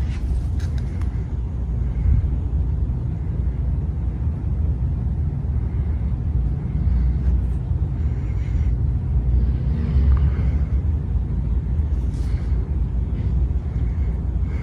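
Steady low rumble with a few faint clicks, of the kind a running vehicle makes.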